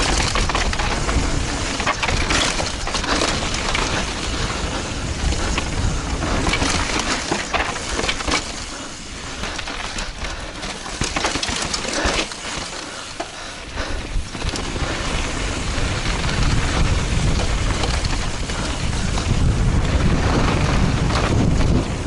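Mountain bike tyres crunching and skidding over loose dirt and rocks on a fast descent, with the bike clattering and rattling over bumps and wind rushing on the microphone. A quieter, smoother stretch comes about halfway through, and the wind rumble grows heavier near the end.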